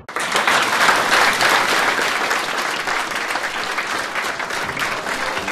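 Studio audience applauding, starting suddenly, loudest in the first second or two, then settling into steady clapping.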